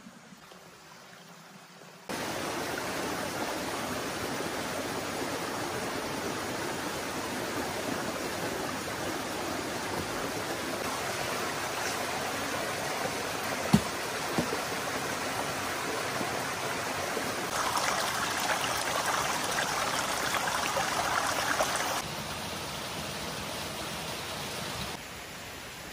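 A small rocky forest stream splashing over stones in a steady rush, with one sharp knock partway through. The rush sets in a couple of seconds in and drops away in steps near the end.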